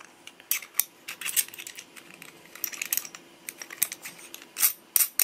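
Parts of a machined metal solvent-trap silencer clicking and tapping as they are handled and screwed together: an irregular scatter of light clicks, a few sharper ones near the end.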